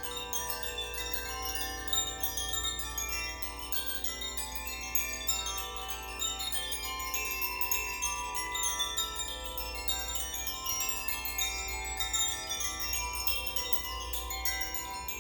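Koshi chimes shaken by hand, their clappers striking the tuned rods again and again so that many clear, overtone-rich tones ring and overlap in a continuous shimmer.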